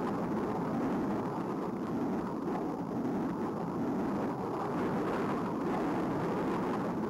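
Steady, even rushing noise of a jet aircraft in flight.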